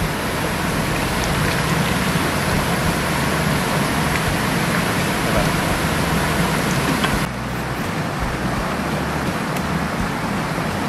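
Steady rush of a shallow, rocky stream's running water, turning a little duller about seven seconds in.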